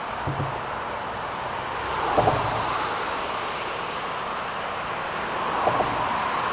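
Steady wind noise, with a short double knock and low thump twice, about two seconds in and again near the end.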